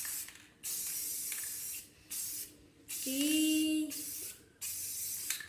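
Aerosol spray-paint can spraying in four or five short hissing bursts with brief pauses between them.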